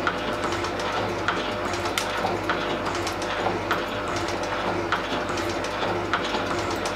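Elliott 10M metal shaping machine cutting an aluminium block, running with a steady hum and a regular click about every two-thirds of a second.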